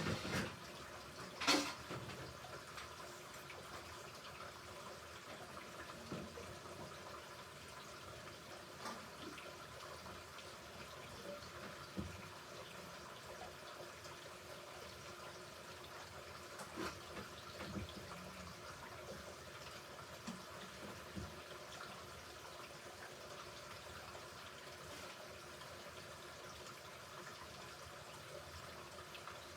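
Hoover Ecologic Computer Washer 1300 washing machine in its rinse, with water running and sloshing faintly in the drum. There is a sharp click about a second and a half in, and a few soft knocks after it.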